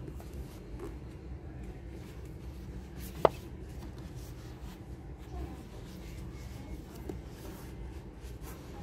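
Soft handling sounds: fingers brushing the spines of hardback books on a shelf and the phone rubbing in the hand, over a steady low hum of shop ambience. One sharp click about three seconds in.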